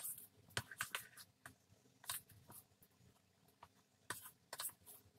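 Steel spoon stirring thick semolina batter in a plastic bowl: faint, irregular scrapes and light taps against the bowl, in two spells about four seconds apart.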